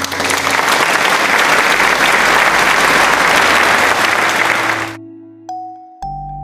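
Crowd applause, a dense clapping sound with children's background music beneath it, which cuts off suddenly about five seconds in; a few chiming notes follow near the end.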